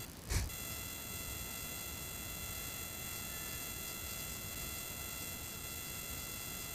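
Steady background hiss with several faint, high, constant electronic whine tones. A single brief thump comes about a third of a second in.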